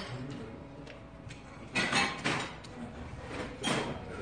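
Eating at a laden table: chewing, with light clinks of chopsticks and tableware against dishes and a couple of short louder bursts about two seconds in and near the end.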